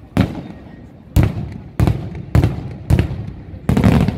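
Daytime fireworks: aerial salute shells bursting in a run of loud bangs about every half second, each with a short echoing tail, the last two coming close together near the end.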